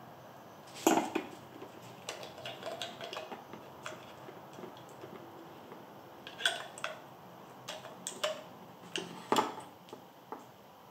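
Hard plastic clicks and clacks of interchangeable plug heads being handled, taken off and fitted onto a laptop power adapter. A sharp click about a second in is the loudest, followed by a run of lighter clicks, then several more sharp clicks in the second half.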